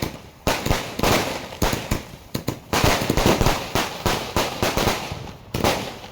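120-shot firework cake firing its shots in quick succession: sharp bangs about two a second, each followed by a short crackle.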